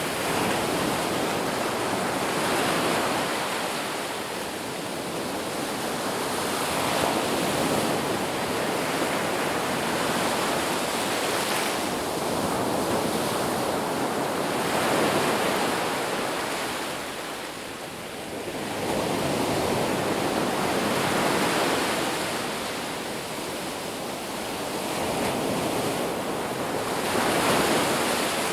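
Ocean surf on a beach: a continuous rush of breaking waves that swells and eases in slow surges about every six seconds.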